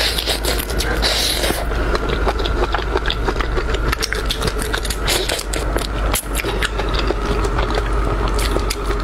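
Close-miked eating of crab and shrimp: shells crunching and cracking and the food being chewed, a dense, continuous run of crackly clicks.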